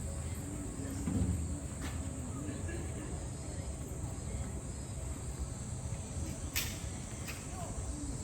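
A steady, high-pitched chorus of summer insects over a low background rumble, with a faint distant voice about a second in and a single sharp click about two-thirds of the way through.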